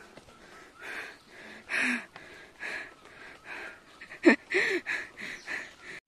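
A hiker panting heavily from the climb, with quick breaths a little under a second apart. The breaths grow louder past the middle, with a couple of voiced gasps.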